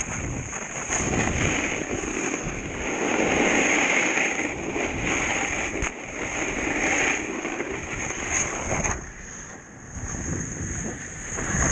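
Snowboard sliding and carving over snow, a steady rough scraping rush that swells and eases, dipping briefly near the end.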